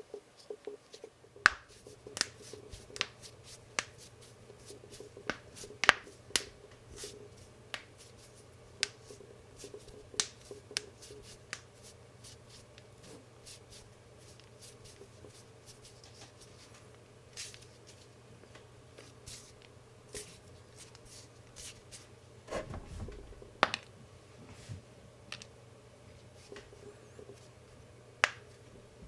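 Knuckles cracking: a string of sharp pops at irregular intervals, coming thick and fast at first and sparser later, with one dull thump a little past the middle.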